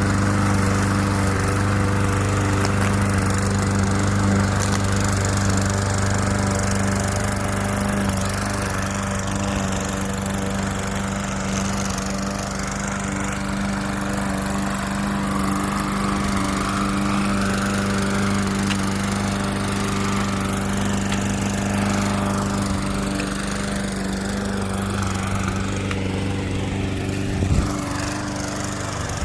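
Gasoline walk-behind Toro lawn mower running steadily under load while cutting grass. A single sharp knock comes about two seconds before the end.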